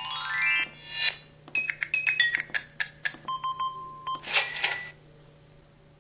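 Built-in sound effects of an LG-LP3000 mobile phone playing through its small speaker. A quick rising run of tones opens it, followed by a string of short beeps and chimes, a held beep about three seconds in, and a brighter chime a little over four seconds in.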